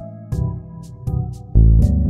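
Background music: sustained keyboard or synthesizer chords with a light ticking beat, and a heavy low note coming in about one and a half seconds in.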